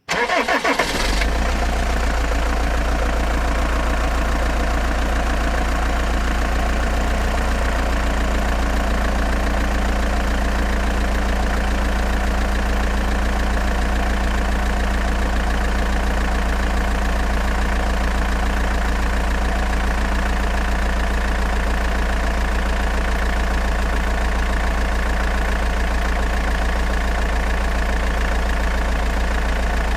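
Tractor engine running steadily, starting about a second in and holding an even, unchanging note.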